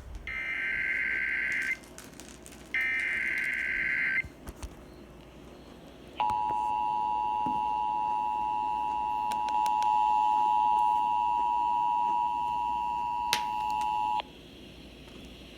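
Emergency Alert System alert: two harsh, buzzy digital header bursts of about a second and a half each, then the steady two-note EAS attention tone sounding for about eight seconds and cutting off, announcing a severe thunderstorm warning.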